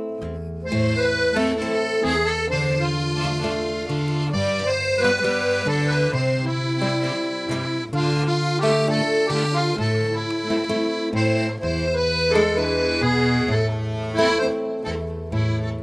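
Accordion playing the instrumental introduction of a havanera, a flowing melody over changing bass notes.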